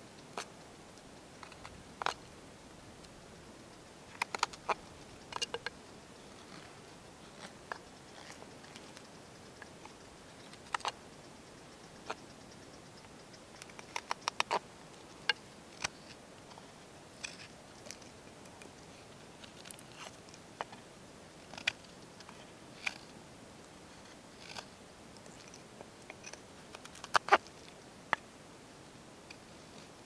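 Fixed-blade knife carving and paring a freshly cut green stick: a series of short, sharp, irregular clicks as the blade bites into and shaves the wood, some coming in quick clusters of three or four.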